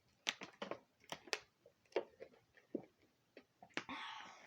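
A string of small, sharp clicks and taps at an uneven pace, like objects being handled, followed by a short soft rustle near the end.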